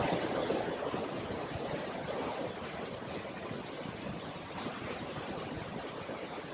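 Water gushing in through the open sluices of a manual canal lock's upper gates: a steady rushing as the lock chamber fills.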